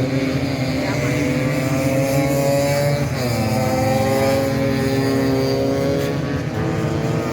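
Tuned 180cc Vespa two-stroke scooter engines racing at high revs. Their pitch climbs steadily, drops sharply about three seconds in, then climbs again, with another dip near the end.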